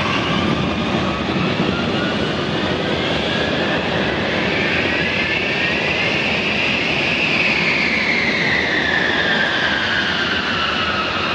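Boeing B-52H Stratofortress on its takeoff roll, its eight turbofan engines at takeoff thrust: a loud, steady jet noise with a high engine whine that rises in pitch and then falls from about seven seconds in as the bomber passes.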